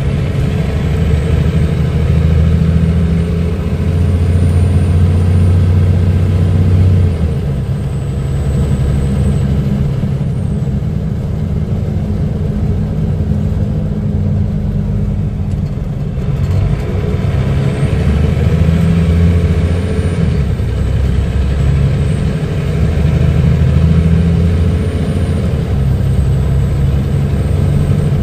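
Scania DSI9 turbocharged diesel engine running with a steady low drone. It is stronger at first, eases off several seconds in, and builds again past the middle.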